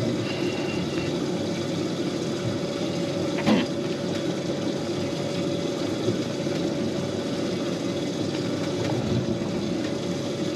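Boat engine running with a steady drone and a constant hum. A single sharp knock about three and a half seconds in.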